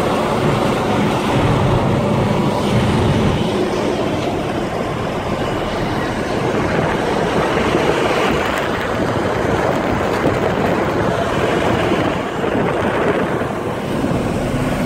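Steady wind and road noise of a semi-truck travelling at highway speed, heard from inside the cab. A low engine hum fades out about three seconds in.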